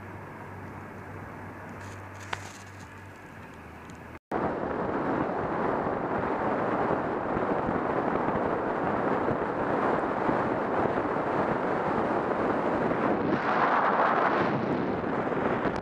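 Car driving on a paved road: a steady low road and engine hum with one sharp click, then, after a break about four seconds in, a much louder steady rush of wind over the microphone mixed with road noise.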